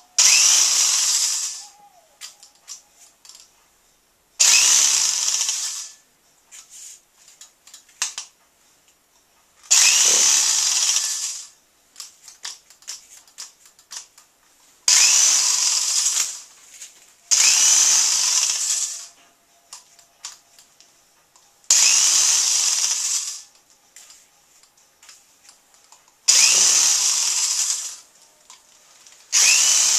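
Corded electric drill spinning a paint-loaded brush in its chuck, run in short bursts of about two seconds each, about eight times, each starting sharply and fading before it stops. The whirring brush flings paint across the canvas.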